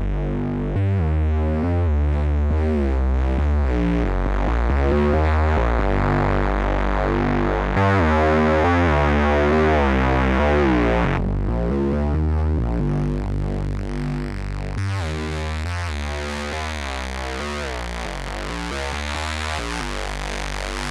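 Korg Monologue analog synthesizer playing an acid-house bass sequence through a Boss guitar drive pedal, with a steady low bass and stepping notes whose tone sweeps up and down as the filter moves. The top end drops away about eleven seconds in.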